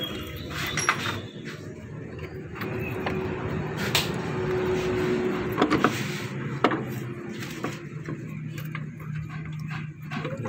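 Knocks and clinks of metal parts and tools being handled on a car's engine bay, over a steady low hum.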